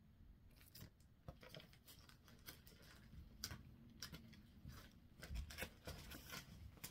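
Faint rustling and crinkling of plastic pattern sleeves and tissue paper being handled, with scattered light clicks.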